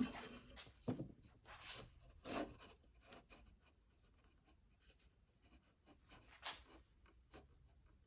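Faint handling noises of wooden workpieces: a few short rubs and soft knocks, scattered through the first two and a half seconds and once more about six and a half seconds in.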